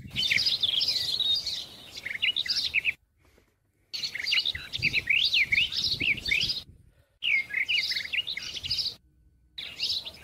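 Small birds chirping in quick, short notes and trills, with the sound dropping out to silence three times.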